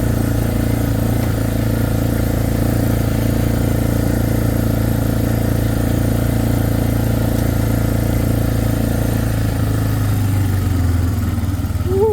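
ATV (four-wheeler) engine running steadily while riding, its pitch dropping near the end as it slows down.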